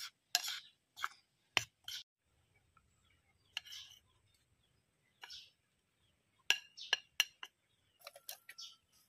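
Metal spoon clinking and scraping against the bowl as flour is stirred and spooned out: short sharp clicks in clusters, with quiet gaps between them.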